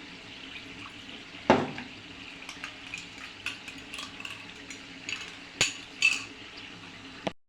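Water being added to a cooking pan, with a metal utensil knocking against the pan, sharpest about a second and a half in and twice more near the end, over a steady low hum.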